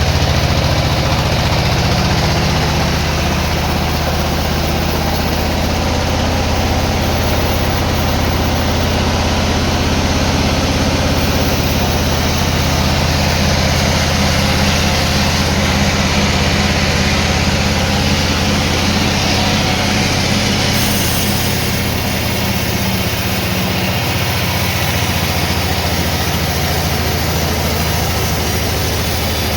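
Sawmill machinery running steadily: a low engine drone with an even hiss over it, dropping slightly in the low end about three quarters of the way through.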